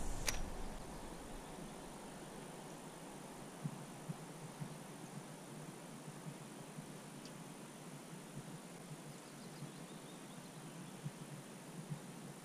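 Faint open-air ambience from a small boat on a lake: a low steady hiss with a few soft, scattered knocks.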